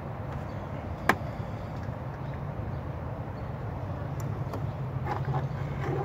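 Handling of a plastic scotch-lock wire connector being fitted onto a car's turn-signal wire: one sharp click about a second in and a few faint clicks near the end, over a steady low rumble.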